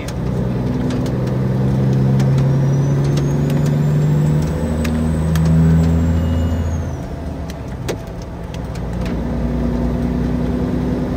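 Peterbilt 379 semi truck's diesel engine running while driving, its pitch stepping between a few levels, with scattered sharp clicks over it.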